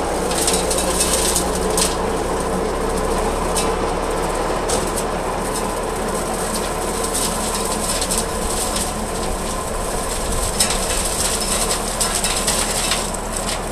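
Zetor 5545 diesel tractor running steadily under load, driving a Teagle Dyna Cut flail hedge cutter whose head spins in the brambles. Irregular crackling and snapping run through it as the flails smash the brambles.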